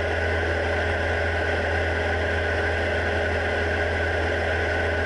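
Steady cockpit drone of a Diamond DA40's piston engine and propeller in cruise flight.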